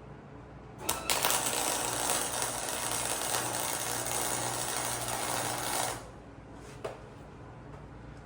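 Electric welding arc burning in one run of about five seconds, starting about a second in and stopping abruptly, over a steady low hum.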